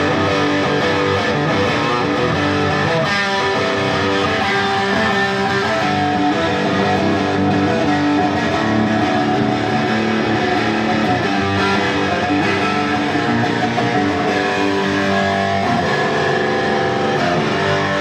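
Electric guitar music playing at a steady level, one riff running on without a pause.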